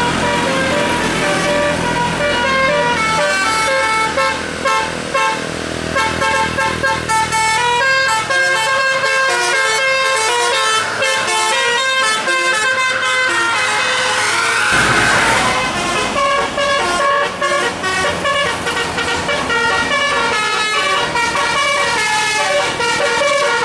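A bus's telolet multi-note musical air horns playing a fast tune of quickly stepping notes, several tones sounding together, over the low hum of the bus engine. About two-thirds of the way through, a short rushing noise rises over the horns.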